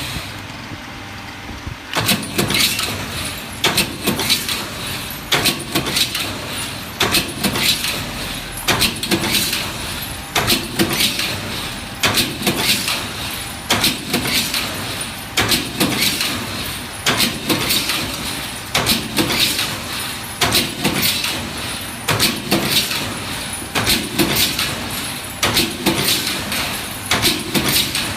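CNC box-tube punching and cutting machine working through a tube: sharp metallic clanks of the punch strokes, often doubled, repeating about every second and a half over the machine's running hum, starting about two seconds in.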